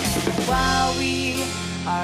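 Background music with drums and held notes.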